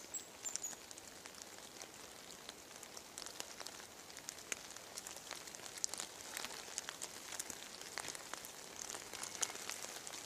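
Light spring drizzle: faint, irregular pattering of raindrops on leaves and gear over a soft hiss. A short high thin whistle sounds right at the start.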